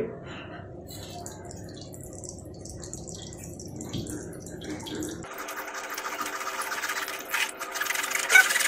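A spoon stirring pineapple pulp in a fine steel mesh tea strainer, scraping the mesh while the juice trickles through into a glass bowl. About five seconds in, the scraping turns denser and louder.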